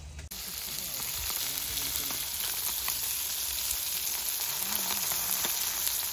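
Fish frying in hot oil in a pan: a steady, dense sizzle that starts suddenly just after the beginning.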